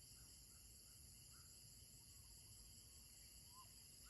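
Near silence: a faint, steady insect chorus, with a few faint short chirps.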